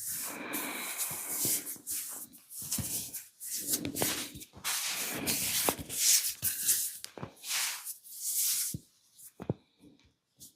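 Hands rubbing and kneading over skin during a massage, with a few short sharp taps scattered through it; the rubbing dies down about nine seconds in, leaving only a few faint taps.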